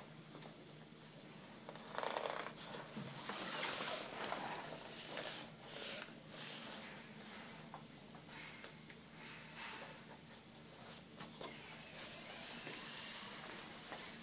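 Rustling and scraping of a printed fabric graphic being handled and pressed by hand into the edge of a Texflex display frame, in irregular bursts.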